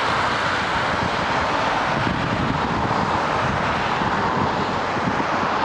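Steady, even outdoor rushing noise with no distinct events.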